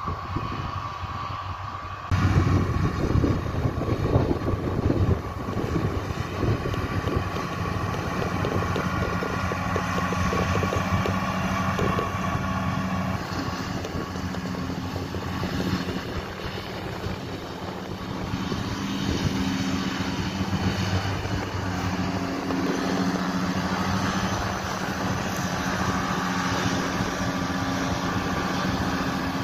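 Fendt 720 Vario tractor's six-cylinder diesel engine running steadily under load, driving front and trailed John Deere mowers cutting grass, with some wind on the microphone. A little over two seconds in, the sound jumps suddenly louder and closer.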